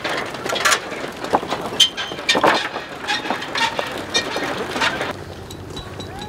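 A bicycle being wheeled across a wooden plank footbridge: irregular clicks, knocks and rattles from the bike and footsteps on the boards, dying down about five seconds in.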